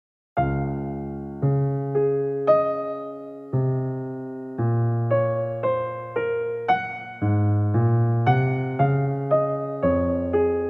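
Soft piano music: slow chords, each struck and left to fade, a new one about every second, starting just after the opening.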